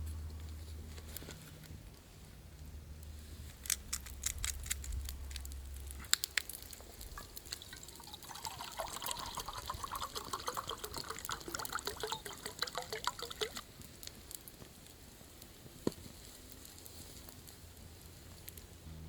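Liquid being poured into a container for about five seconds in the middle, with a bubbly, gurgling run, preceded by a series of sharp clicks and knocks and followed by a single click.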